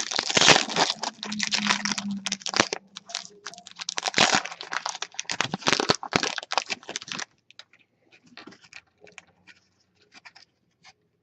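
Crinkling and tearing of a trading-card pack wrapper for about seven seconds, followed by faint light ticks of cards being handled.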